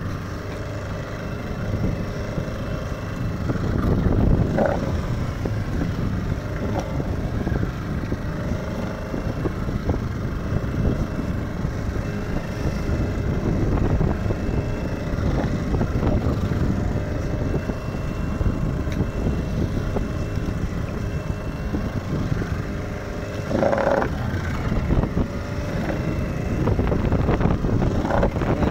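Fishing boat's engine running steadily under way, with wind buffeting the microphone and water rushing past the hull. Two brief louder sounds stand out, one about four seconds in and one late on.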